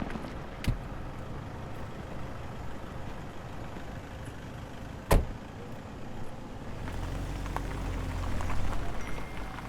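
A motor vehicle running, with a low engine hum that grows louder for a couple of seconds near the end. Two sharp knocks cut through it: a small one just under a second in, and a louder one about five seconds in.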